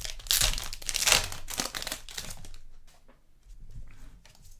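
Plastic wrapper of a 2020-21 Hoops basketball card pack crinkling and tearing as it is ripped open, loudest in the first two and a half seconds or so, then dropping to fainter rustling as the cards are handled.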